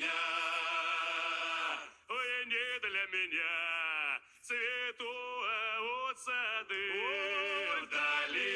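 Background music: a man singing long held notes that slide between pitches, with short breaks about two and about four seconds in.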